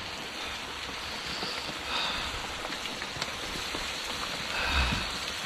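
Steady heavy rain falling, with a short dull thump near the end.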